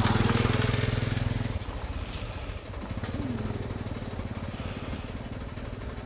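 Tractor's diesel engine running with a steady, fast chugging beat, a little louder for the first second and a half and then settling.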